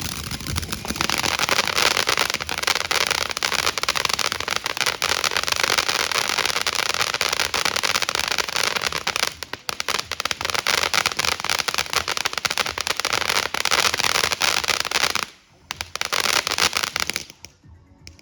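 Fireworks crackling: a long, dense run of rapid small bangs that breaks off briefly twice and stops suddenly near the end.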